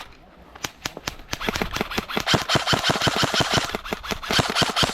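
Airsoft guns firing in rapid strings of sharp cracks, several shots a second, starting after a short pause about half a second in and keeping up steadily.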